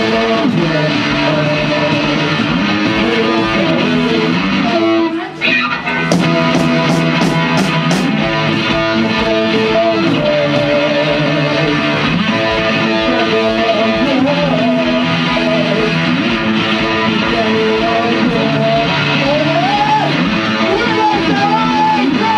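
A rock band playing live, led by strummed electric guitar, with a short break about five seconds in.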